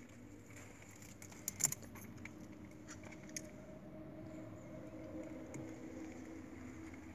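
Faint rustling and sharp clicks from someone moving over dry leaf litter and rocks while handling the camera, loudest in a quick cluster of clicks about a second and a half in, over a faint steady hum.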